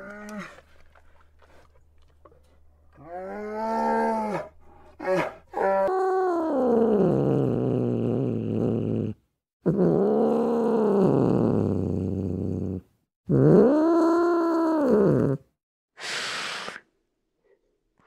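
An animal calling: a series of long drawn-out calls, each rising and then falling in pitch, the longest about three seconds, followed near the end by a short breathy burst.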